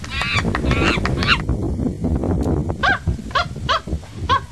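Rhesus macaques calling: a burst of high, wavering screams, then a regular string of short calls about two or three a second from about three seconds in.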